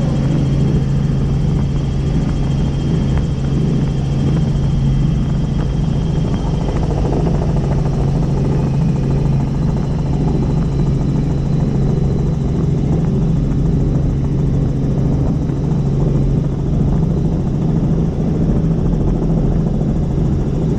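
Helicopter in flight, its engine and rotor running steadily with a strong, even low hum.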